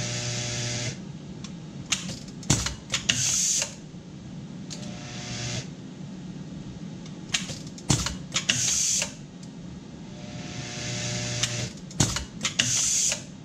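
C. Davis Systems LC pneumatic crimp machine cycling three times, crimping Deutsch size 16 contacts: each cycle is a cluster of sharp clicks from the shuttle and crimp head with a short hiss of compressed air. Between cycles the vibratory parts bowl hums briefly as it feeds the next contact into the escapement, switched on and off by its sensor.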